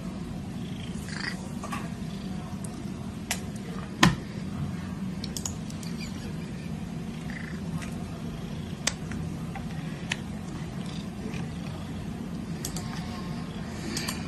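Domestic cat purring steadily, with a few sharp clicks, the loudest about four seconds in.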